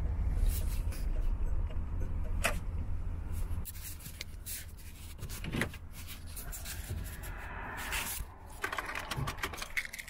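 Low rumble of a van driving, heard from inside the cab, that drops off sharply about four seconds in as the van comes to a stop. It is followed by a quieter hum with scattered small clicks and knocks.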